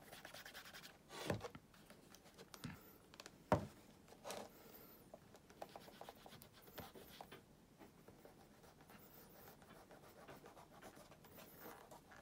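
Fingers rubbing shoe cream into the leather of a black cap-toe oxford, a faint dry rubbing, with a few knocks as the shoe is handled, the loudest about three and a half seconds in.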